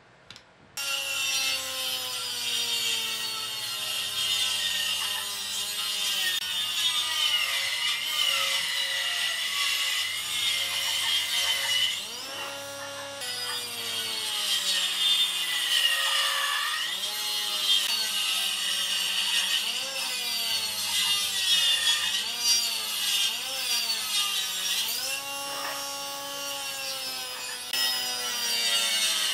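Stationary woodworking jointer cutting a wooden board as it is fed along the bed. The machine's whine dips in pitch as it takes each cut and rises again as it recovers. It starts under a second in.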